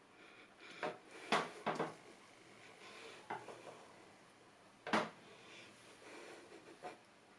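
Scattered light clicks and knocks of hands handling things on a tabletop around a cake plate, with one louder knock about five seconds in.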